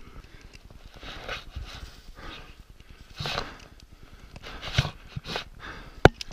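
A person breathing hard in repeated noisy gasps while struggling in snow, with one sharp knock about six seconds in.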